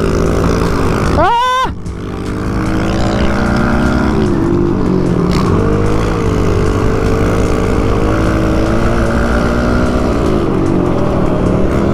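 Small motorcycle engine running under throttle, its pitch rising and falling, with a quick high rev about a second in.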